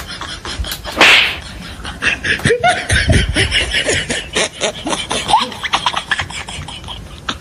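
Laughing over a rapid, dense run of clicks and smacks, with a loud sudden burst about a second in.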